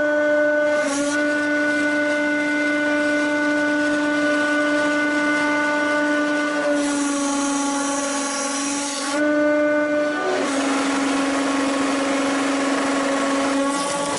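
Hydraulic press pump and motor running with a steady, pitched hum, played in reverse. Its pitch steps a little several times, about a second in, around the middle and shortly after.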